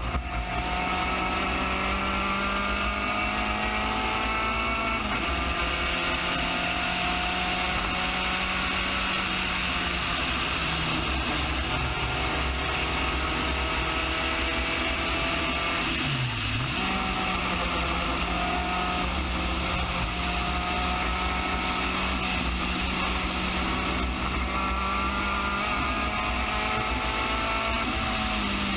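Spec Racer Ford GEN3's four-cylinder engine pulling under full throttle, heard from the open cockpit. Its pitch climbs steadily with the revs and drops about five seconds in at a gearchange, dips sharply and comes straight back up around halfway, and falls near the end as the car comes off the throttle.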